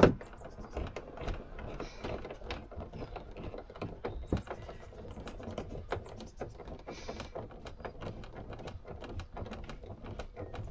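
A screw being driven in by hand: a run of quick, irregular small mechanical clicks from the tool, with a sharp knock right at the start.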